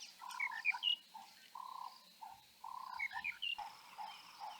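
Wild bush calls: a series of short, hollow low notes repeated every half second or so, and quick high rising chirps from birds in little bursts about half a second and three seconds in.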